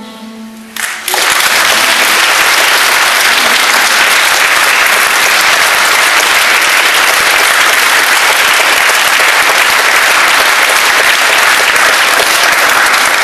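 A held sung note ends at the very start, and about a second in a large audience breaks into loud, dense applause that goes on steadily.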